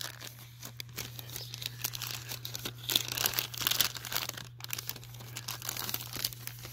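Paper receipts rustling and crinkling as they are handled, unfolded and flipped through, in many small irregular rustles.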